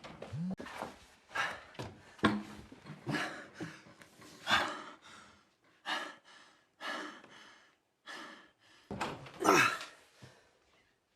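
A man gasping for air in ragged breaths, about one a second, some with a strained voiced edge, the loudest near the end: breathlessness brought on by trauma.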